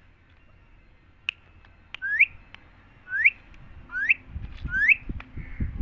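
Parrot whistling: four short whistles, each sliding upward in pitch, about a second apart.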